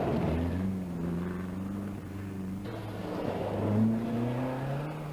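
Rally car engine accelerating hard under load, its pitch climbing, dropping at a gear change about four seconds in, then climbing again.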